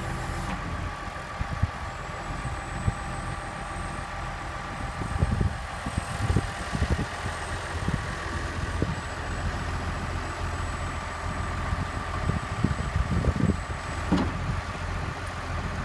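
Tractor engine running steadily at idle, driving the hydraulics of a homemade HIAB crane, with scattered low clunks and knocks as the boom is worked.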